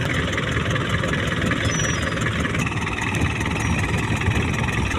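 Fishing boat's engine running steadily, an even low drone.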